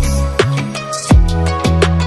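Background electronic music with a steady kick-drum beat and sustained bass and synth chords.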